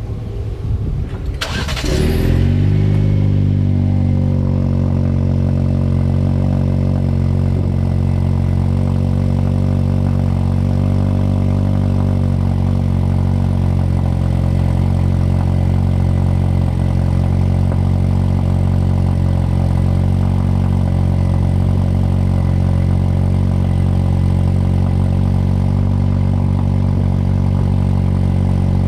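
2020 Jeep Wrangler's 2.0-litre turbo four-cylinder cold-starting through an AFE axle-back exhaust with the muffler deleted. The starter cranks briefly and the engine catches with a flare about two seconds in, then settles into a steady idle.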